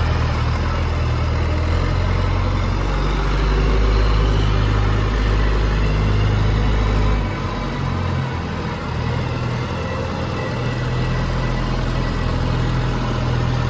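Backhoe loader's diesel engine running steadily. Its low note shifts and dips briefly about seven seconds in, then steadies again.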